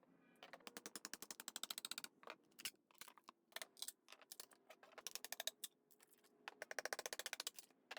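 Faint, rapid clicking in several short runs of about ten even ticks a second, with scattered single clicks between them.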